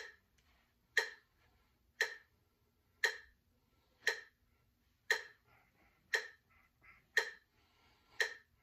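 Metronome clicking steadily at about one beat a second, each click short, sharp and bright.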